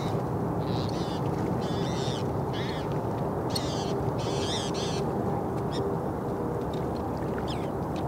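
Steady rumble of distant highway rush-hour traffic, with a run of short, raspy bird calls between about one and five seconds in.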